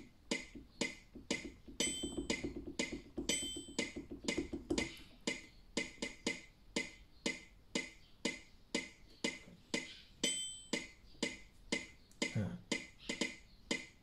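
Electronic keyboard's built-in metronome clicking at a steady beat, a little over two clicks a second, while it is being set up. Three short high beeps from the panel buttons, and a low rapid rattle for a few seconds near the start.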